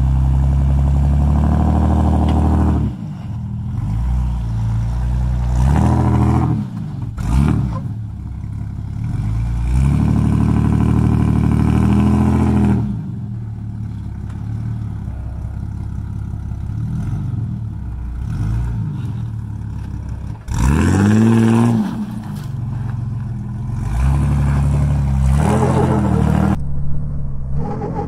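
Jeep engine revving in repeated bursts of throttle, its pitch rising and falling, while crawling over rocks. A single sharp knock comes about seven seconds in.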